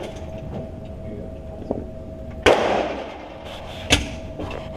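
Two gunshots about a second and a half apart, each sharp crack trailing off in echo.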